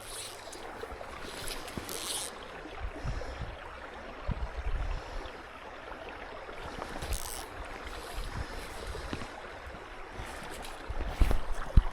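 Outdoor pond-side ambience: a steady hiss of breeze and water, with wind buffeting the microphone in irregular low thumps and a few brief high swishing bursts.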